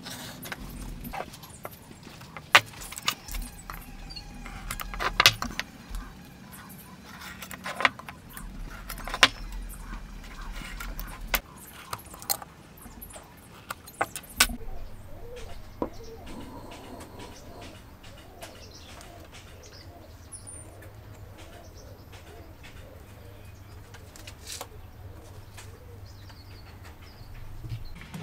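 Scattered taps, clicks and knocks of hand tools being handled on a wooden workbench while the wood is marked out, with birds calling in the background. About halfway through it becomes quieter, leaving mostly faint bird calls and an occasional tap.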